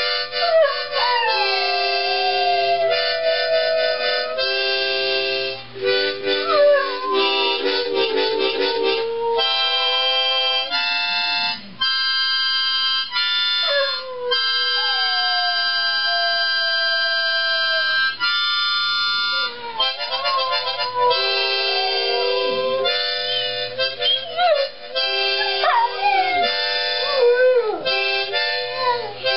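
Harmonica playing a tune in chords while dogs howl along, the howls sliding up and down in pitch over the steady harmonica notes.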